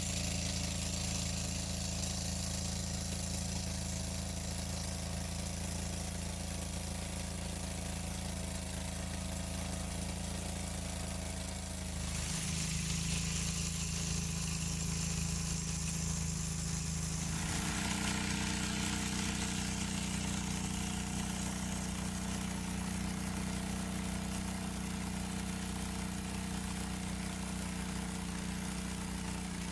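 A small engine running steadily, its pitch and tone changing abruptly twice partway through.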